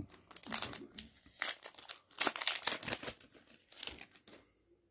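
Foil Yu-Gi-Oh! booster pack wrapper being crinkled and torn open: irregular crackling rustles that stop about four and a half seconds in.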